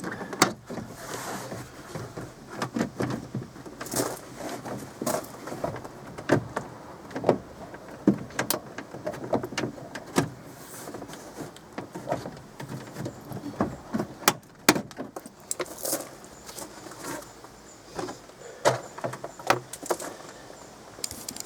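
Irregular clicks, knocks and rattles of a Skoda Favorit's inside door trim panel being pried loose from the door, its fixings letting go one after another.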